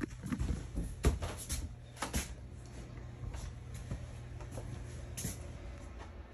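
Footsteps and light knocks on a travel trailer's floor, clustered in the first couple of seconds, over a steady low hum.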